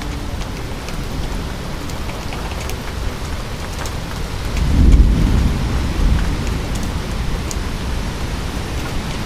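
Rolling thunder swells about four and a half seconds in and is loudest around five seconds before fading, over a steady hiss of rain with scattered drops ticking.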